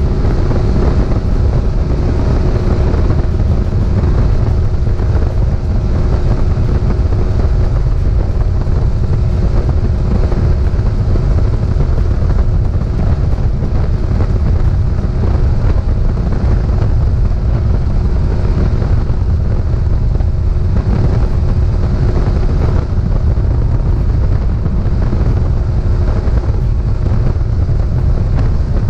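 Bass boat's outboard motor running steadily at a constant pitch while under way, with heavy wind buffeting on the microphone.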